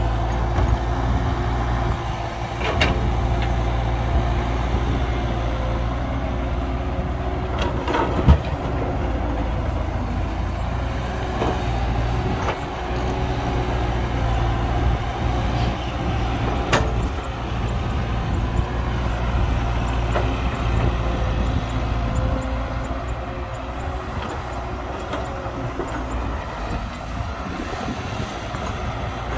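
Heavy diesel construction machinery running steadily with a deep engine rumble, broken by a few sharp knocks, the loudest about eight seconds in.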